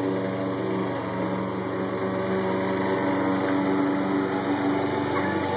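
A steady mechanical hum of a motor running, holding one even pitch throughout.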